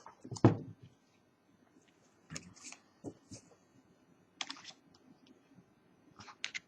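Scattered clicks and light clatter of a small plastic tool being handled and set down on a table, with a sharper click about half a second in.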